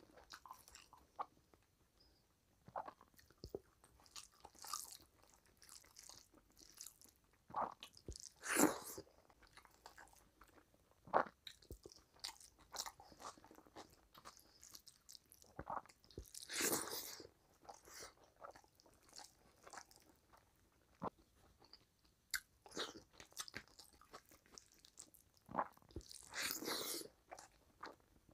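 Close-up mouth sounds of a person eating rice and curry by hand: wet chewing, smacks and small crunches in an irregular patter, with a few longer, louder bites about eight seconds in, midway and near the end.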